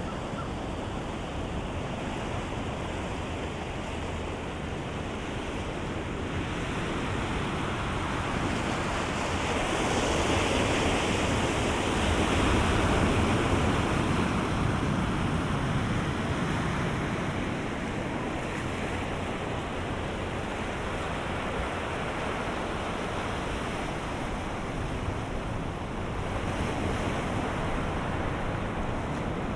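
Ocean surf breaking on the shore, a steady wash of waves that swells louder about ten seconds in and eases off after about fifteen.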